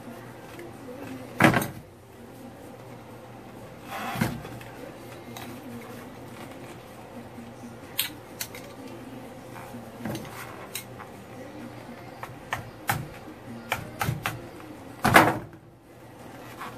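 Hand tools clicking, knocking and scraping against the metal CV-joint end of a Jeep Wrangler JK front driveshaft as the joint is worked on for a boot replacement. There is a louder knock or scrape about a second and a half in, another around four seconds, a run of light clicks and taps in the middle, and the loudest scrape near the end.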